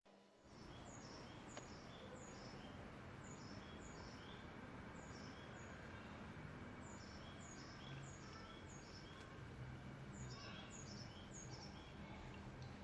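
Faint small-bird chirping: short, high, falling chirps repeated several times a second, over a low background hiss.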